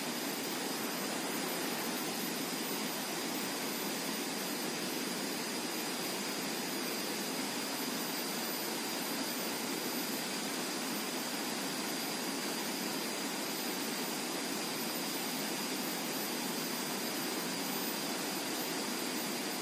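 Steady rushing of a small river's flowing water, an even hiss that does not change, with a thin steady high tone over it.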